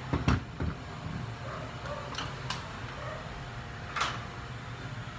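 A few knocks and clunks as a Hitachi cordless impact driver and a battery are handled and set down on a workbench. The loudest comes just after the start and another about four seconds in, over a steady low hum.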